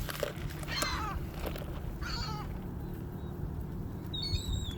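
Birds calling: three short calls that slide down in pitch, about a second, two seconds and four seconds in, the last one higher and chirpier, over a steady low background rumble.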